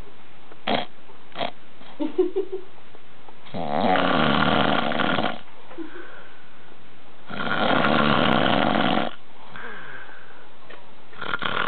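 A man passed out drunk, snoring loudly: two long snores about four seconds apart, a third starting near the end.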